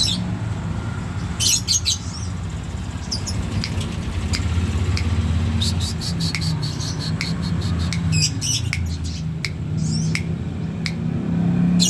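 Songbird calling in short, sharp chirps and clicks, first in scattered clusters, then from about six seconds in as a quicker run of repeated chirps, over a steady low hum.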